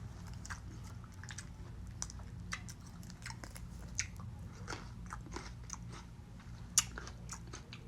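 Close-up chewing of fresh fruit: scattered wet crunches and mouth clicks, one sharper crunch near the end.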